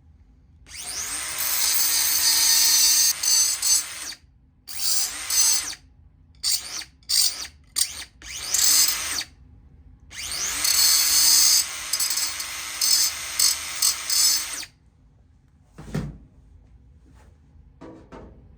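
Handheld power tool spinning up and running in bursts: one run of about three seconds, a string of short stabs, then a second run of about four and a half seconds. A single thump follows.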